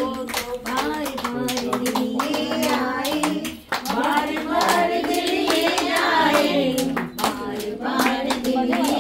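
A group of people singing together, with hands clapping along throughout.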